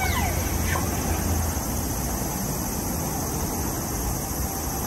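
Steady city street noise at a busy crossing: a traffic hum with a constant hiss above it. A brief falling sweep at the very start, the tail end of the sounds just before.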